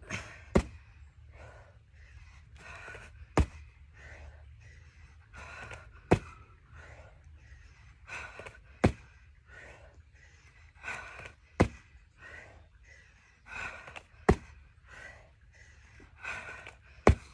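A person breathing hard through a set of bear press-ups with donkey kicks, with a sharp knock about every three seconds, seven in all, as the feet come down after each kick.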